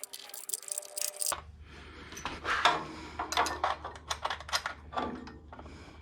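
Metal tools and small engine parts clinking and clattering as they are handled, a run of irregular clicks and knocks. A steady low hum starts about a second in.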